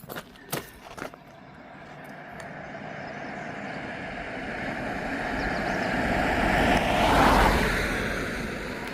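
A road vehicle approaching and passing by, its noise swelling over several seconds, loudest about seven seconds in, then fading. A few sharp clicks come in the first second.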